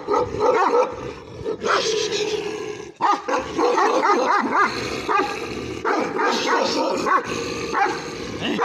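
Two dogs barking and snarling at each other, many short barks in quick succession.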